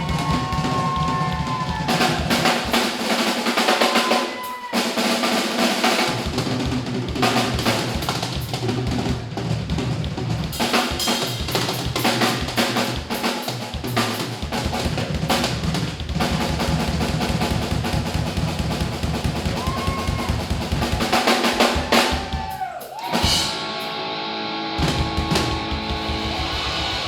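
Live rock drum kit solo: fast rolls and fills across snare, toms and bass drum with rimshots, with some amplified sustained tones ringing over it. The drumming breaks off briefly near the end.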